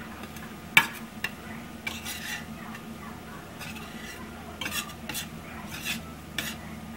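Slotted spatula stirring and scraping scrambled eggs around a stainless steel frying pan, with irregular taps and scrapes of the spatula against the pan.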